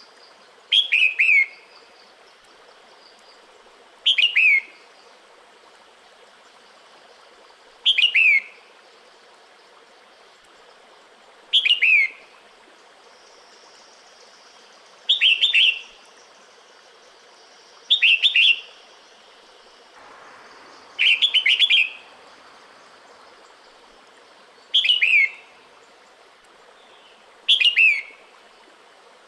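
Female red-whiskered bulbul calling to males in the breeding season: nine short calls of quick falling notes, one every three to four seconds, over a faint steady hiss.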